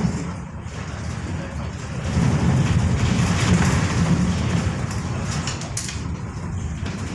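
Steady low rumble of the expedition ship's hull pushing through pack ice, swelling about two seconds in, with indistinct voices of people on deck.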